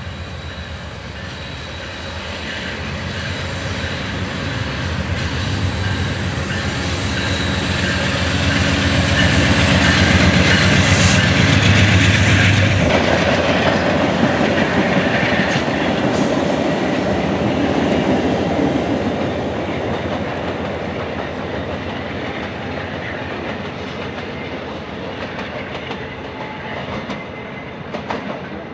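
Diesel-hauled train passing. The locomotive's engine grows louder, peaks about twelve seconds in and drops in pitch as it goes by. The cars then roll past and the sound slowly fades.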